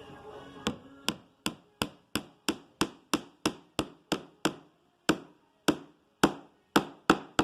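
Hammer tapping a small nail into a wooden frame joint: about eighteen sharp, quick knocks, around three a second, slowing to wider-spaced blows after about five seconds.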